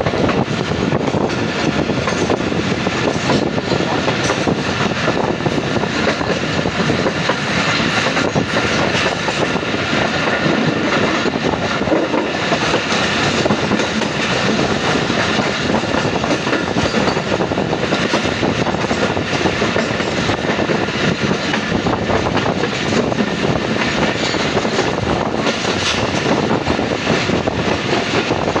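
Passenger train running along the track, heard from an open coach doorway: a steady, loud rolling noise of steel wheels on the rails, with scattered clicks from the track.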